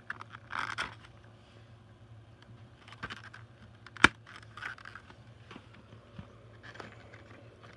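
Plastic VHS clamshell case being handled, with light clicks and rustling and one sharp plastic snap about four seconds in.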